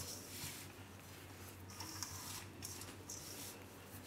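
Hands tossing and rubbing a dry mix of pearl-millet flour, wheat flour and spices in a steel bowl. The flour makes faint, soft rustling swishes, a few times.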